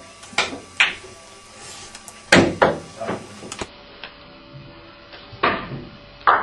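Carom billiard balls clicking: a series of sharp clacks of cue on ball and ball on ball, in three quick groups.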